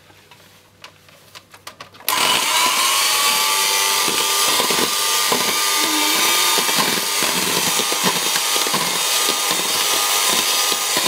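Safeway electric hand mixer switched on about two seconds in and then running steadily with a constant motor whine, its beaters whipping egg whites in a plastic jug.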